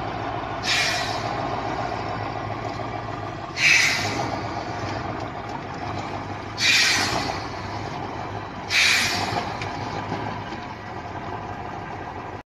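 Heavy truck's engine running steadily, with four sharp hisses of released compressed air, about every two to three seconds.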